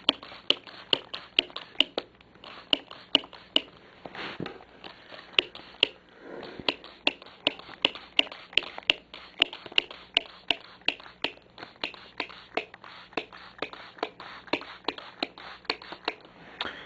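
Plastic trigger spray bottle being pumped over and over, giving sharp regular clicks about three a second, with a soft rustle now and then.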